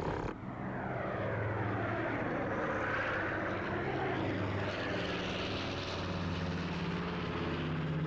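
Cartoon sound effect of a propeller plane's engine droning steadily in flight, its tone sweeping slowly up and down.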